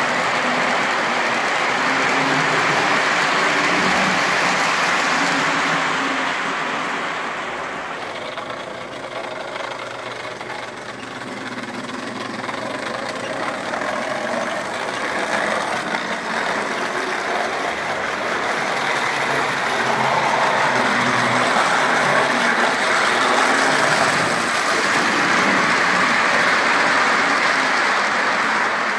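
O gauge model freight trains rolling on three-rail track: a steady rumble and clatter of metal wheels on rail. It swells as the cars pass close, eases about eight seconds in, and builds again from about twenty seconds.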